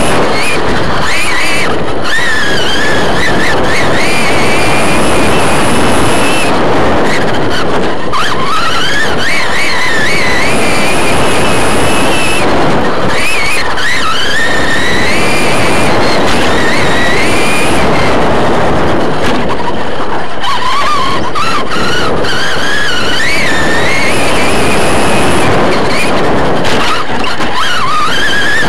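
Electric RC short course truck running flat out, its motor and gearing whining up and down in pitch with the throttle through each straight and corner. Loud rushing wind and dirt noise from the camera on the truck lie under the whine.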